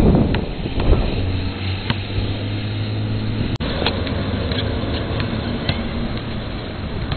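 Steady low hum of a motor vehicle engine running, over outdoor background noise, with a few faint knocks. The sound drops out for an instant about three and a half seconds in.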